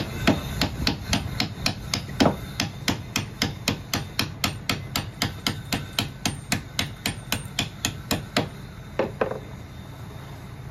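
Rapid, evenly spaced knocks from a tool, about three a second, growing weaker and stopping near the end.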